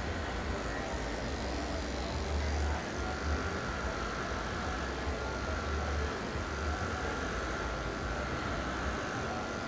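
Corded electric hair clipper buzzing with a low, steady hum as it cuts hair, the hum dropping out briefly a few times.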